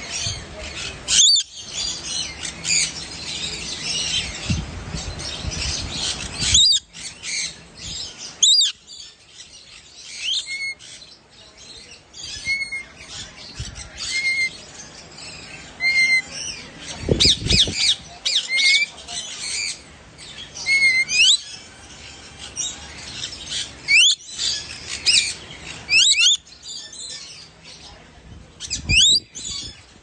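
Lorikeets calling: repeated short, shrill screeches and chirps, some sweeping up in pitch, with the loudest screeches at irregular intervals throughout.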